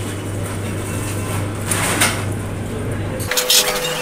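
Eating-house background: dishes and cutlery clink a few times over a steady low hum and faint voices. About three seconds in the hum cuts off abruptly and a steady higher tone takes over.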